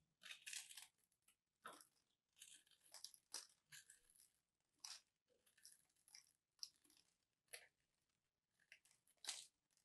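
A small blade digging into a dry, crosshatch-scored bar of soap, breaking off crumbly chunks: a series of short, crisp crunches and crackles, about a dozen, unevenly spaced.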